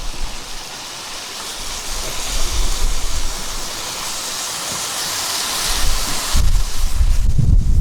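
Sea water hissing as a wave washes over rocks, swelling for a few seconds, then wind buffeting the microphone near the end.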